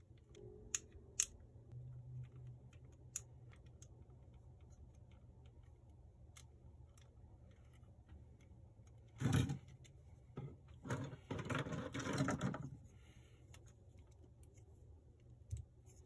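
Plastic model kit parts clicking and rattling as they are handled and fitted together: scattered sharp clicks in the first few seconds, then a short loud rattle about nine seconds in and a longer, busier clatter of plastic pieces a couple of seconds later.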